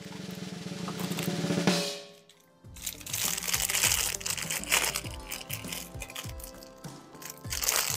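A snare drum roll that cuts off about two seconds in. After a brief pause, plastic bags of toy bricks crinkle as they are handled, over background music.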